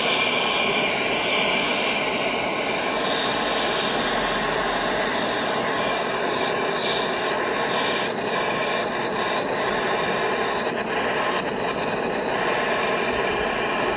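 Handheld gas torch flame blowing steadily into a crucible of molten sterling silver, a constant rushing hiss.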